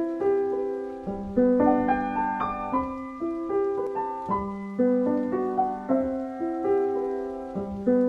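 Intro music on piano: notes and chords struck about every half second, each ringing and fading away.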